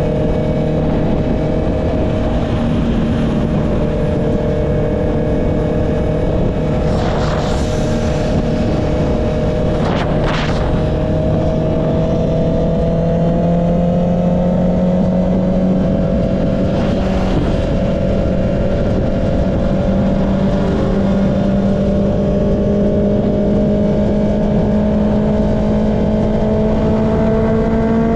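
Honda CB650R's inline-four engine with an Akrapovic exhaust running steadily under way, its note rising slowly as the bike gains speed, over heavy wind and road noise. A few brief rushes of noise cut through, a third of the way in, near the middle and again just after.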